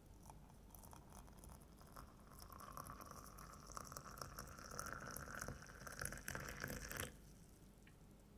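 Liquid poured in a steady stream into a vessel. The pitch of the stream creeps up slightly as it fills, and it stops abruptly about seven seconds in.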